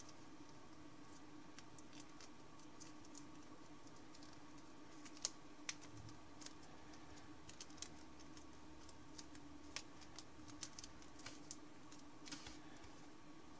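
Faint, irregular clicks and crackles of thin origami paper being creased and handled between the fingers, loudest about five seconds in, over a steady low hum.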